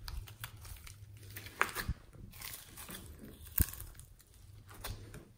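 Fluffy slime studded with foam beads being stretched and kneaded by hand, giving soft sticky crackles and pops. There are a few sharp snaps, near two seconds in and again about three and a half seconds in.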